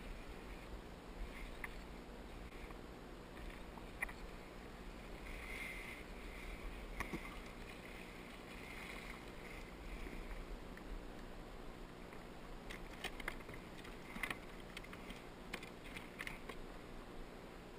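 Quiet sounds of fishing from a boat: a steady low rumble with scattered light clicks and knocks.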